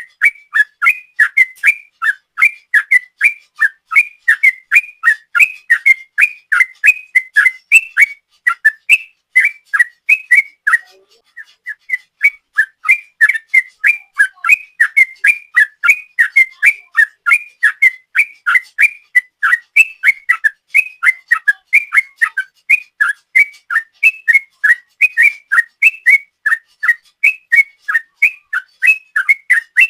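Yellow-vented bulbul (trucukan) singing a long, fast run of short whistled notes, about three a second, with a brief break about eleven seconds in.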